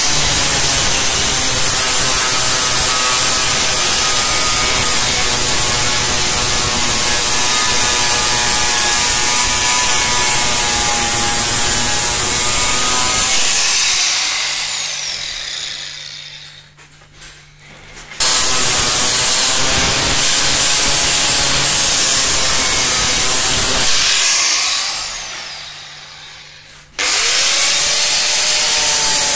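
Angle grinder with an abrasive disc grinding the steel of a knife blank cut from a circular saw blade. It runs steadily, is switched off about 13 seconds in and spins down with a falling whine, starts again about 18 seconds in, spins down again around 24 seconds, and starts once more near the end.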